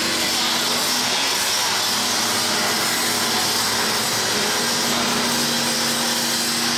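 PNMD-1400 blade sharpening machine's grinding head grinding a plastic crusher knife under coolant water: a steady grinding hiss with a motor hum beneath it.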